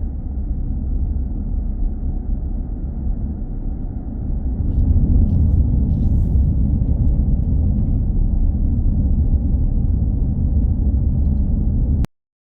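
Steady low road and engine rumble inside a moving minivan's cabin at highway speed. It grows louder about four and a half seconds in and cuts off abruptly near the end.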